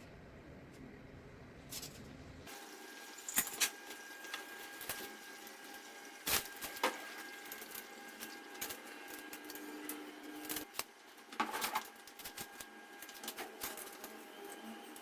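Scattered light clicks and knocks over a faint steady hum; the background sound changes abruptly about two and a half seconds in.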